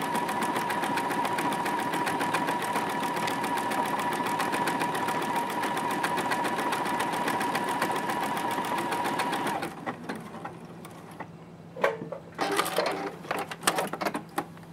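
Juki F600 computerised sewing machine stitching decorative lettering at a steady speed: rapid, even needle strokes over a steady motor whine. It stops about ten seconds in, followed by a few short clicks and rustles.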